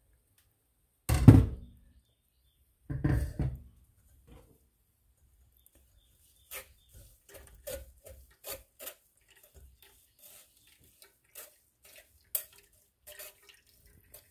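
Blended lemonade pulp and juice poured from a blender jar into a metal mesh strainer over a glass pitcher, splashing twice, about one and three seconds in, the first the louder. Then a spoon taps and scrapes against the metal strainer in short, irregular clicks as it presses the pulp.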